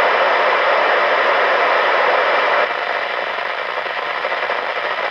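Steady hiss of static from a President Grant II CB radio's speaker with the squelch open and no station transmitting on the channel. The hiss is louder for the first two and a half seconds, then drops to a quieter level.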